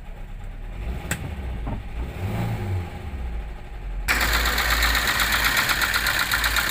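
Toyota Avanza engine idling with a harsh, rough mechanical clatter while the oil pressure warning light is on: the engine is running without oil pressure. At first it is muffled, heard from inside the cabin; about four seconds in it becomes much louder and clearer, heard at the open engine bay, the clatter in a fast, even rhythm.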